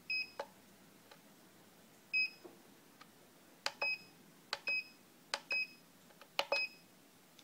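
Soldi Smart Plus counterfeit banknote detector beeping as its buttons are pressed. There are about six short, high beeps, each paired with the click of a plastic push-button, as its setup menu is stepped through.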